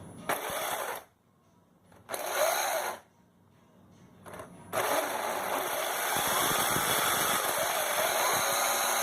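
Small electric drive motors of a 3D-printed RC tank running through their gears in three bursts: two short runs of under a second, then a longer run of about five seconds. The whine rises and falls in pitch as the throttle changes.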